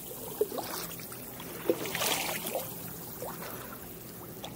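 Kayak paddles dipping into calm water, with small plops and drips off the blades and a fuller splash of a stroke about two seconds in.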